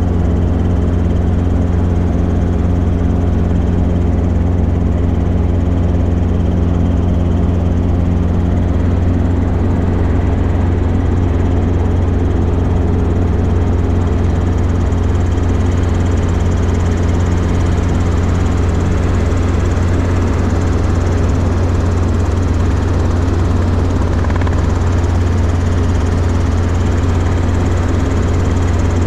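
Robinson R22 Beta II helicopter running steadily: its four-cylinder piston engine and rotors make a loud, continuous low hum.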